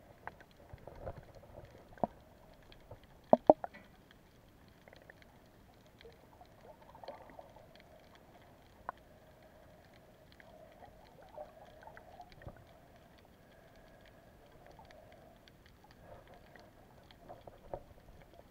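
Underwater sound picked up through a camera's waterproof housing: scattered clicks and knocks over a muffled steady hum, with two sharp, loud knocks close together a few seconds in.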